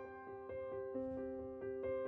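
Background music: soft piano notes played gently at a slow, even pace, each note ringing on.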